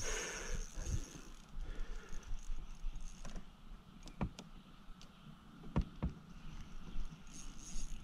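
A few sharp knocks from fishing gear against the kayak, about four and six seconds in, over a faint steady drone of Brood X periodical cicadas.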